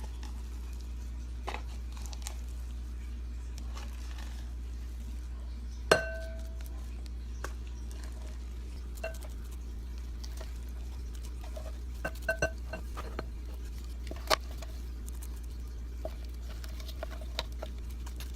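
Scattered taps and clinks of utensils against dishes, the loudest a single ringing clink about six seconds in and a small cluster of clinks a little after the middle, over a steady low hum.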